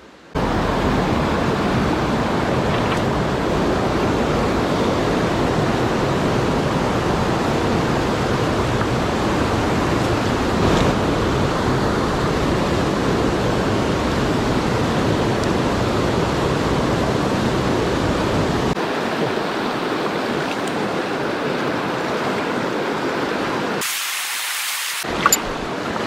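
Loud, steady rush of a mountain stream's water close to the microphone. The deep rumble in it falls away about three-quarters of the way through, and near the end only a thin hiss is left for a moment.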